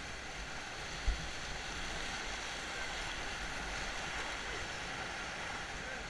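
River rapids rushing, a steady hiss of whitewater around a raft, with one brief low thump about a second in.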